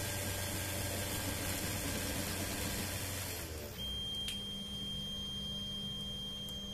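Home-built 3D printer running, its stepper motors and fans whirring steadily; about three and a half seconds in the motor noise stops after a short gliding move, leaving a steady high whine and a low hum as the print finishes.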